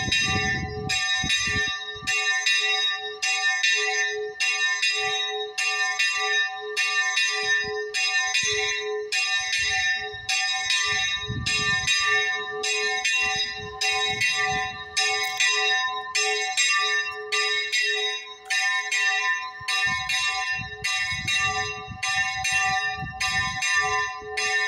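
Small church bell swinging full circle (volteo), its clapper striking about once a second, each stroke ringing on into the next.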